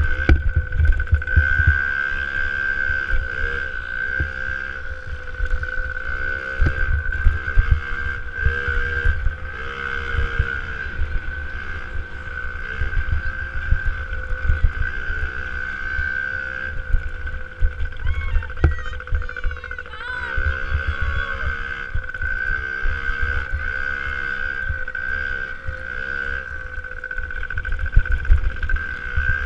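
Small two-stroke 65cc motocross bike engine revving up and falling back over and over as it is ridden hard around a dirt track, with a steady high whine and wind buffeting the on-board microphone.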